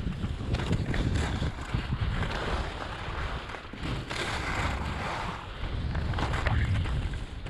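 Wind buffeting the microphone at speed, with the hiss and scrape of skis carving on packed snow. The scrape swells and fades several times as the skier turns.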